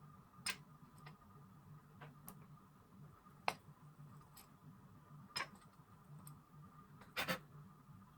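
Irregular sharp clicks and taps, about nine of them at uneven intervals, with a double click near the end, over a faint steady low hum.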